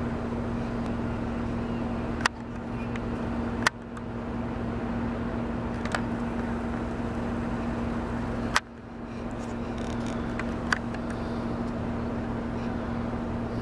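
An engine idling steadily with a low hum, with five short sharp clicks spread through it.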